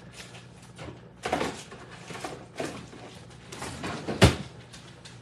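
Kitchen handling clatter: irregular knocks and rustles of containers and utensils being moved on a counter, with one sharp, loud knock about four seconds in.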